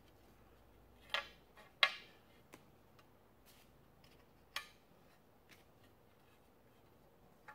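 A few sharp clicks and knocks of small blocks being lifted off a sheet of glass and set down on a bench. The loudest comes about two seconds in and another near the middle, with quiet between.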